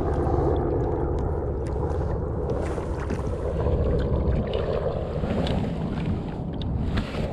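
Kayak under way while trolling: a steady, low rushing of wind and water.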